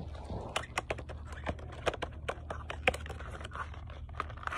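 Hands opening and rummaging in a cardboard Pokémon trading card box: a string of irregular light clicks, scrapes and crinkles of the cardboard packaging.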